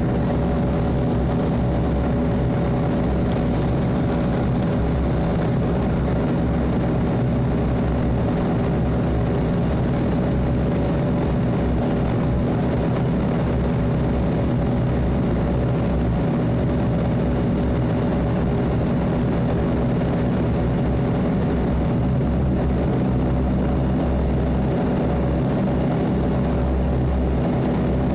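Bombardier Dash 8-Q400's Pratt & Whitney PW150A turboprop and six-bladed propeller running steadily while the aircraft taxis, heard inside the cabin next to the engine. It makes a constant drone with several steady humming tones and no rise in power.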